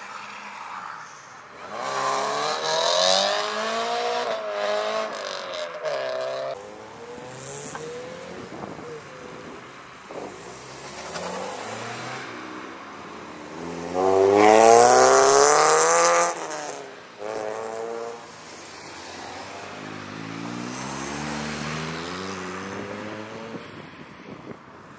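Sports cars accelerating hard past one after another, their engines revving up and shifting gear with stepwise drops in pitch. There are three passes, the loudest a little past the middle.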